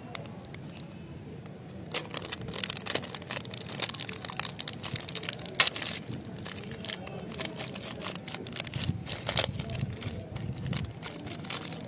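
Plastic wrapper of a packet of chocolate-coated candy beans crinkling and tearing as it is pulled open by hand, with a run of crackles and one sharp snap a little before halfway.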